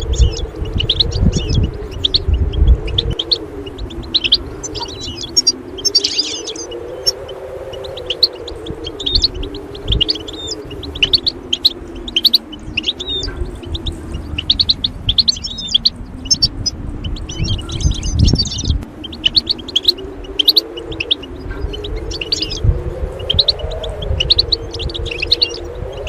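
Small songbirds chirping and twittering in quick trills, over a slow synthesizer drone that wavers up and down in pitch. Low rumbling thumps come in the first few seconds and again about two-thirds of the way through.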